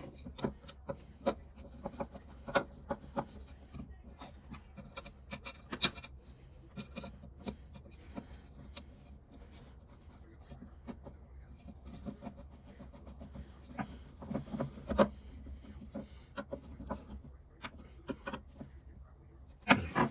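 Hand work at a bench: irregular light clicks and taps, with soft rubbing and scraping between them.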